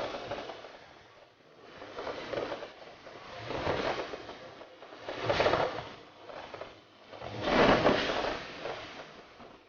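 Fireworks going off: four swelling, rushing bursts about a second long each, the loudest near the end.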